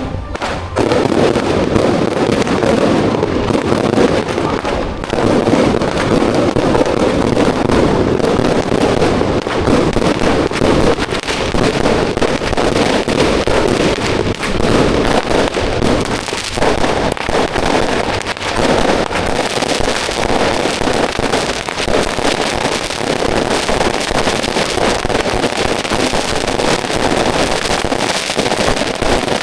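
Firecrackers going off in a dense, unbroken rapid crackle of bangs, starting about a second in.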